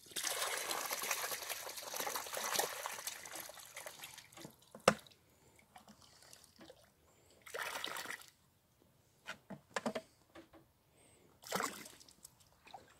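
Water and small live fish pouring out of a tipped plastic bucket into lake shallows: a splashing rush for the first four seconds, a single sharp knock about five seconds in, then two shorter splashes as the last of the bucket is emptied.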